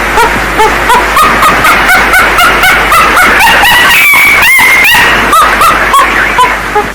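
Monkey calls, heavily amplified and distorted: short, rapid hooting cries about three a second, with a run of higher, longer calls around the middle before the lower rhythm returns.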